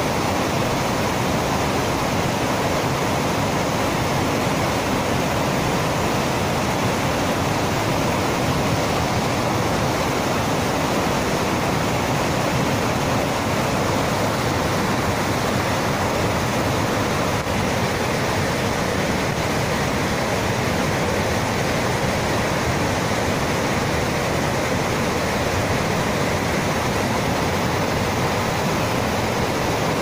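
A rainforest river in flash flood after heavy rain: the high, fast brown water rushes over rocks in one loud, steady, unbroken rush.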